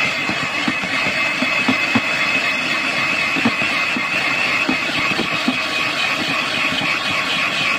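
Electric hand mixer running steadily, its beaters whipping cake batter in a plastic bowl, with a steady whine and scattered light clicks.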